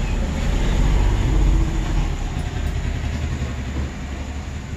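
Front-loading washing machine running near the end of its drum-cleaning cycle, the turning drum and motor giving a steady low rumble that swells about a second in and then eases slightly.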